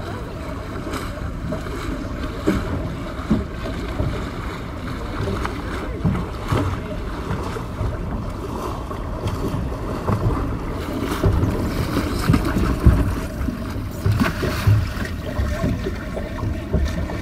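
Wind rushing over the microphone out on open water, with irregular low thumps and gusts.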